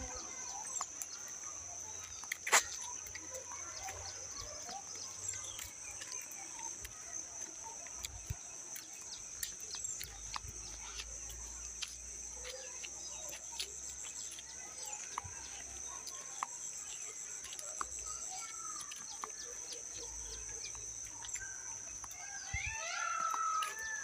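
Steady high-pitched insect drone, with scattered light clicks and one sharp click about two and a half seconds in. Near the end come short, repeated bird calls that rise and fall.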